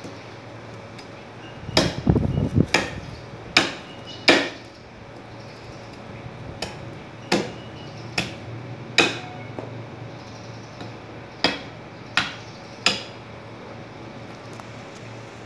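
A large cleaver chopping through beef ribs on a wooden stump block: about a dozen sharp chops at uneven spacing, with a heavier thudding flurry about two seconds in and a lull in the middle.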